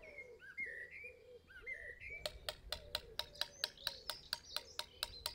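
Birds chirping, then from about two seconds in a steady run of sharp taps, about five a second: a mallet striking a stonemason's chisel on stone.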